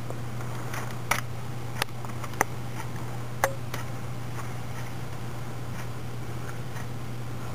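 Small sharp plastic clicks, about four in the first three and a half seconds, as a needle catches loops on the pegs of a plastic circular knitting machine, over a steady low hum.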